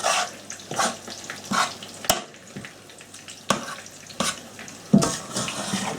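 A spoon stirring and scraping through chicken pieces in korma sauce in a pan on the hob, in short strokes roughly a second apart over a faint sizzle. One sharp click about two seconds in.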